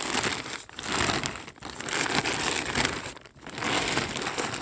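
Clear plastic bag of decomposing dry leaves crinkling as it is handled and turned over. The crinkling comes in several spells with short breaks, the deepest about three seconds in.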